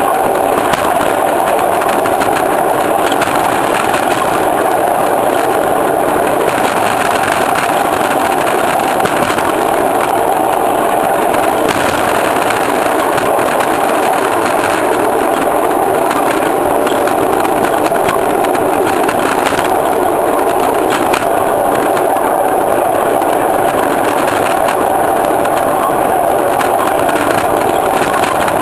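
A train running along the track, heard from its caboose: a steady, unbroken noise of wheels on rails that holds at one level throughout.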